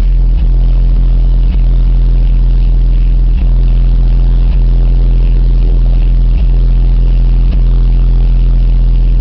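Car audio subwoofers in a Pontiac Firebird playing one steady, very deep bass note at extreme volume, loud enough to distort the recording, with brief dips every second or two.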